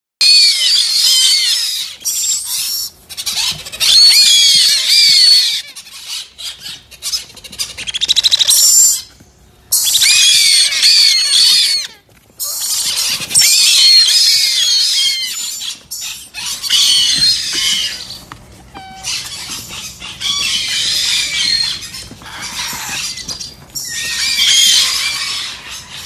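A boxful of baby parrots giving loud, high-pitched begging calls, many chicks at once and overlapping, in bursts with two short lulls about nine and twelve seconds in.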